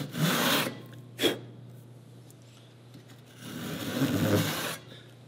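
Dovetail saw used as a dado saw, taking the last strokes to deepen a dado wall in a wooden board. There is a stretch of sawing at the start and another about three and a half seconds in, with a sharp click about a second in.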